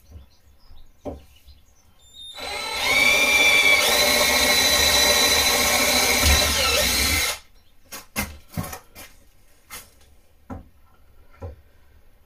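Cordless drill spinning up and boring a hole through the sheet-metal top of a kitchen cabinet, running steadily for about five seconds and then stopping suddenly. A few light knocks come before and after.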